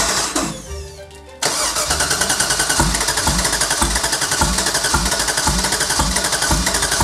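Chevy LS1 5.7-litre V8 cranking on its starter in a rhythmic chugging, huffing and puffing and coughing without catching: it has not yet fired on a start attempt after years in storage. The cranking drops away briefly near the start and kicks back in abruptly at about a second and a half.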